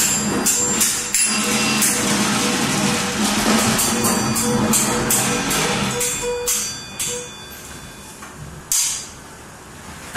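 Free-improvised live music: rapid jangling, knocking metallic percussion over a held low tone. It thins out after about six seconds, with one more sharp strike near the end.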